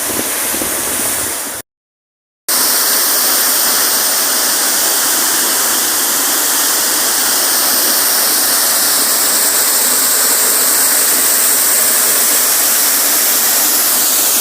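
Waterfall pouring at close range: a loud, steady roar of falling water and spray. The sound cuts out completely for just under a second near the start, then resumes unchanged.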